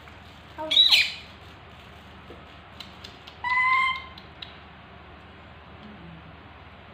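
Baby macaque calling twice: a short high call that sweeps in pitch about a second in, then a steadier, level call of about half a second midway through.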